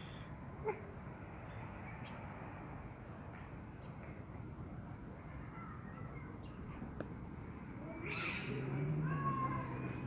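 Mother cat giving a harsh, low growling call near the end, lasting about two seconds: a warning sound to drive off her grown kitten. A short sharp click comes a little under a second in.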